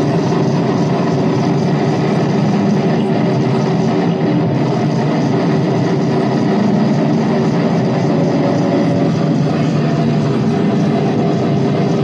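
Live noise music: a dense, steady, unchanging rumble of loud noise with a few faint held tones above it, like an engine drone.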